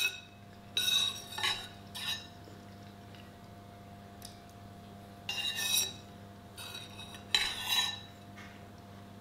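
Metal spoon scraping and clinking against a bowl of soup as it scoops, in several short bursts with a faint ringing tone. One cluster comes about a second in and another from about five seconds.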